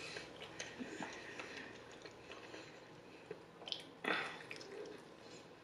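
Close-up eating sounds: soft chewing and small mouth clicks, then a louder bite into a fried chicken wing about four seconds in.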